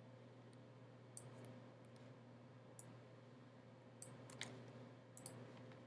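Faint, scattered clicks of a computer mouse, a few short taps spread out irregularly, over a low steady hum.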